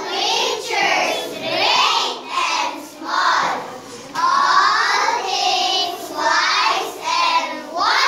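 A group of young children singing together in short phrases of about a second each, with brief dips between them.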